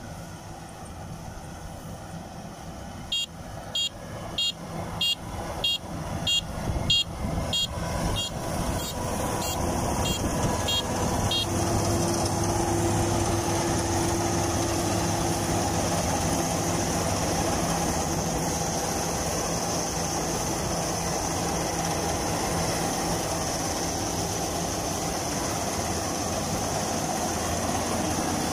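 Kubota DC-93 rice combine harvester running steadily, its engine and threshing machinery growing louder about ten seconds in. Starting about three seconds in, a high electronic beeper sounds about twice a second for some eight seconds.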